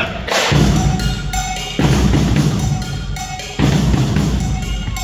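Drum-heavy music with a pounding bass drum and snare, coming in as loud sections that start sharply about every one and a half to two seconds.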